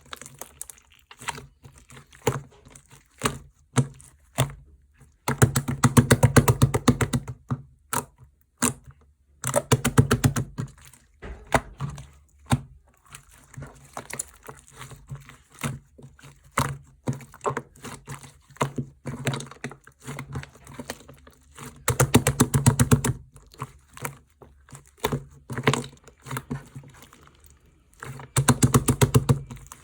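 Slime being squished and pressed by hand, giving scattered clicks and pops. Four times it breaks into a quick run of clicks lasting a second or two.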